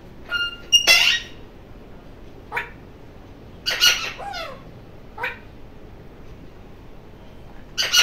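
Alexandrine parakeet calling: a string of about five short squawks and calls a second or two apart, the loudest about one second in and about four seconds in, several of them falling in pitch.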